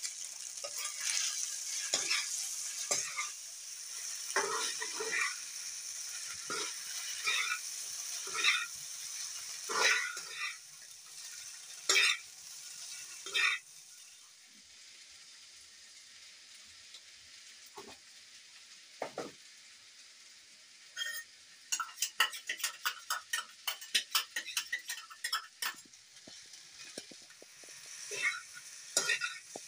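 Pasta sizzling in a frying pan as it is stirred with a spoon, with scrapes and clinks of the spoon against the pan. The sizzle falls away about halfway through, and later comes a quick run of scraping clicks from brisk stirring.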